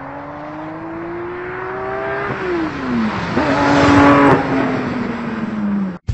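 Car engine revving up as the car accelerates along a dirt track, its pitch climbing and then dropping about two seconds in. Around four seconds in there is a loud rush of noise as the car slides sideways through the dirt, and then the engine note falls steadily until the sound cuts off suddenly.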